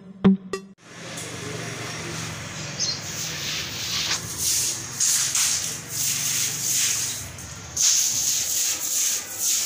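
A short electronic intro beat ends with a few sharp drum hits in the first second. After a brief gap comes a steady rustling, hissy noise with repeated short scraping swells, over a low hum that fades out about eight seconds in.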